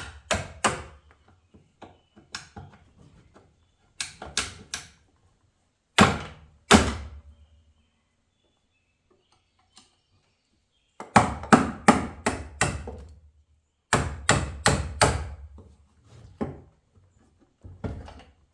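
Hammer blows on a transmission case being split apart, struck in bursts of two to six quick strikes with pauses between, the heaviest pair about six seconds in.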